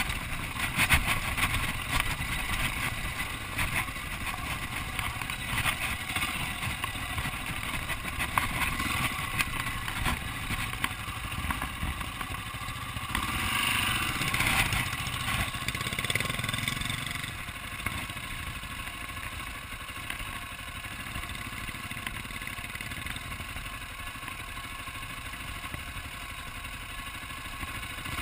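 Dirt bike engine running at low trail speed with rattling from the bike over rocky ground. The sound swells briefly around the middle, then drops to a lower, steadier level for the last third.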